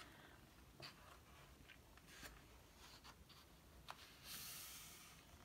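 Quiet handling of a hardback picture book: a few faint light taps, then about four seconds in a soft paper swish lasting about a second as the page is turned and smoothed flat.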